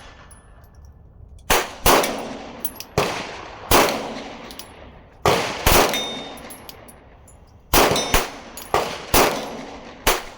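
About eleven 9mm pistol shots from a Glock 19X, fired mostly as quick pairs, each followed by an echo, with steel targets ringing faintly from the hits.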